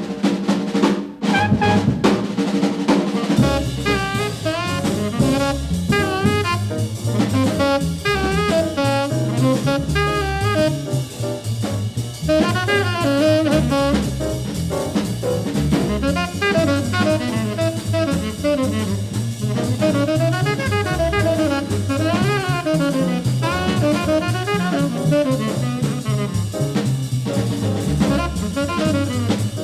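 Background jazz music: drums open it, then a saxophone-like horn melody comes in about three seconds in over the drum kit and bass.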